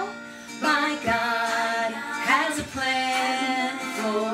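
Children's praise song with singing over acoustic guitar accompaniment.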